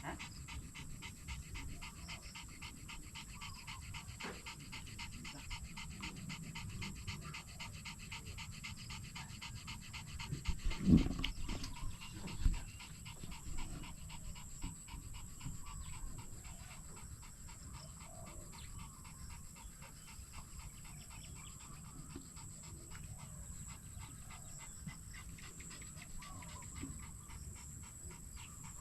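Rapid, even panting, like an animal breathing hard, over a steady high-pitched background hum. Two dull thumps sound a little before the middle, the loudest moments.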